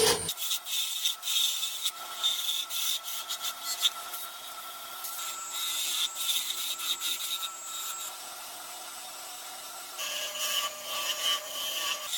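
Wood being cut and scraped by a tool: a rough, uneven rasping made of many short strokes, with a faint steady whine underneath.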